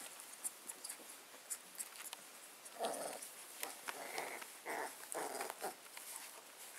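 Bearded collie puppies play-fighting: about four short, growly yaps in the middle, over light scuffling ticks.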